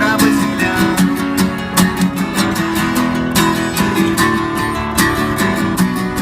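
Acoustic guitar strumming chords steadily, without singing, in a live acoustic song.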